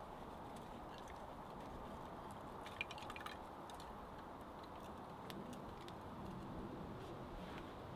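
Small campfire of split pine kindling just catching: faint crackling and a few sharp ticks, the loudest cluster about three seconds in, over a steady soft hiss.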